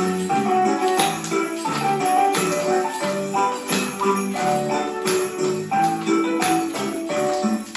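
Children's song with jingling bells and a steady beat, with a group of young children clapping along in time.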